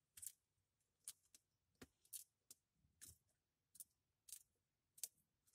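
Faint, sharp crunching clicks, irregular at roughly two a second, as a young Cape monitor lizard bites and chews a migratory locust, cracking its hard shell.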